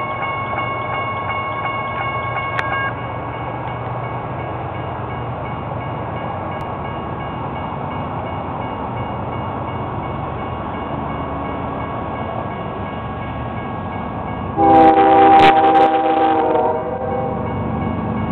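CSX GE ES44DC diesel locomotive approaching with a steady low rumble, then sounding its multi-chime horn in one blast of about two seconds near the end. A grade-crossing bell rings with rapid strokes for the first few seconds, then stops.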